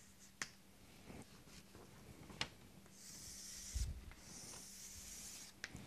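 Chalk drawn across a blackboard in two long, faint hissing strokes, about three seconds in and again from just after four seconds, as lines are underlined. A few faint clicks and a soft low thump near four seconds.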